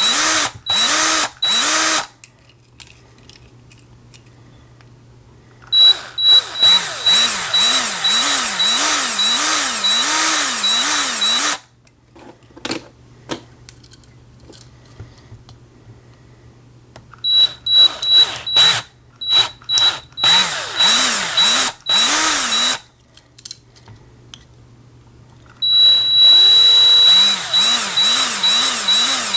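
Small electric drill boring pilot holes into the rivets on the base of die-cast toy cars. It runs in short bursts at first, then in runs of several seconds with quiet gaps between.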